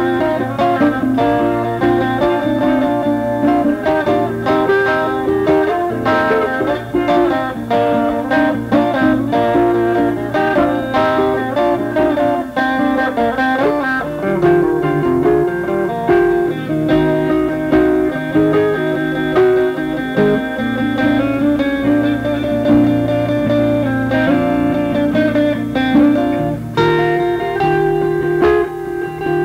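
Two guitars improvising an instrumental country-blues tune together, a steady stream of plucked notes and chords.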